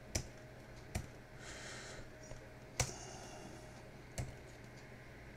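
Computer keyboard keys being pressed one at a time: four separate sharp clicks a second or more apart.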